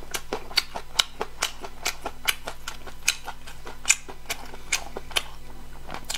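Close-miked eating: sharp, wet mouth clicks and smacks from chewing, about three to four a second.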